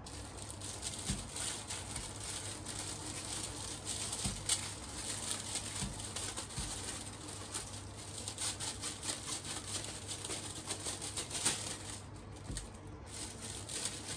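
Thin plastic wrapper crinkling and crackling almost without a break as it is tugged and twisted off a head of baby wombok (napa cabbage), with a few dull knocks against a wooden chopping board.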